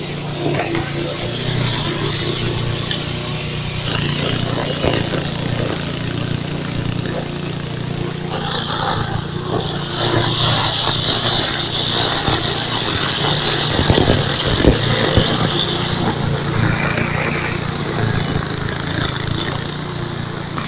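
Cub Cadet wheeled string trimmer's Kohler four-stroke petrol engine running steadily under load as it cuts through tall grass and weeds. A higher hiss strengthens from a little before halfway to about three-quarters through, with a few sharp knocks in the middle of that stretch.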